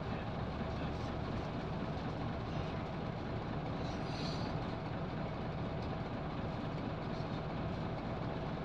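Steady cabin noise inside a Scania L94UB Wright Solar single-deck bus on the move: an even low rumble of engine and road. A short hiss comes about four seconds in.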